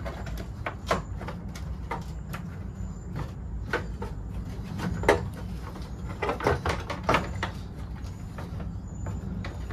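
Irregular clicks, knocks and rattles of hands working in a pickup's plastic rear bumper step, feeding the license plate light wiring connectors through their holes. The sharpest knock comes about five seconds in, over a steady low hum.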